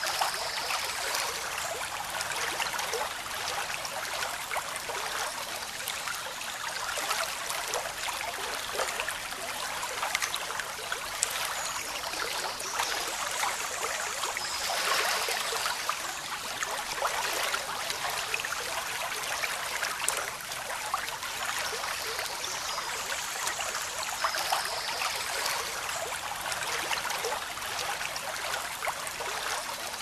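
Fast-flowing river rushing over rocks in rapids: a steady, full hiss of churning water with fine crackle, even in level throughout.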